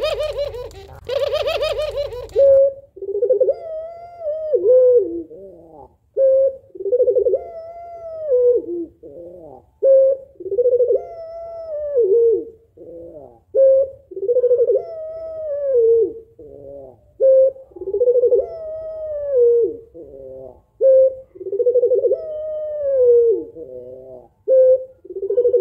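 Female puter pelung (ringneck or barbary dove) cooing in a repeating phrase about every three seconds: a short note, then a long arching coo that rises and falls and trails off lower. The first couple of seconds hold a louder, rougher call over a low rumble.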